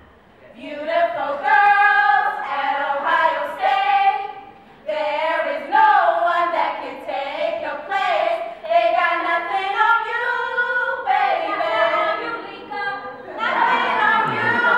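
A group of women's voices singing together a cappella, in phrases of held notes with a short break about five seconds in. The singing grows louder near the end.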